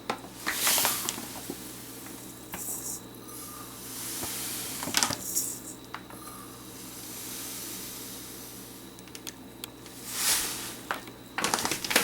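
Ingredients being measured and poured into a pot: a few short hissing pours, with a sharp knock of a cup or dish about five seconds in, over a low steady hum.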